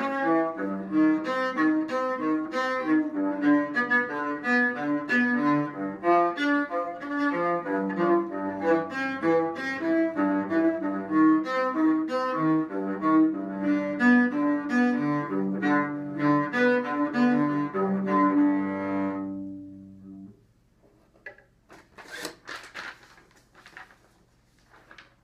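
Cello bowed in a steady run of quick notes, ending on a held note that dies away about twenty seconds in. A few soft knocks and rustles follow.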